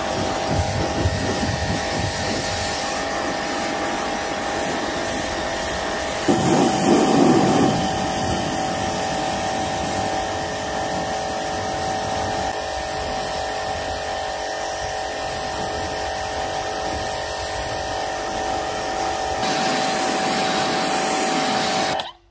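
Pressure washer running: a steady motor whine over the hiss of the water jet, with a louder rush of spray for a second or two about six seconds in. It cuts off abruptly at the very end as the trigger is let go.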